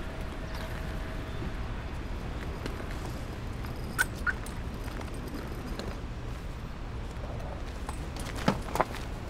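Outdoor car-park background: a steady low rumble, with two pairs of short sharp clicks or chirps, one about four seconds in and a louder pair near the end.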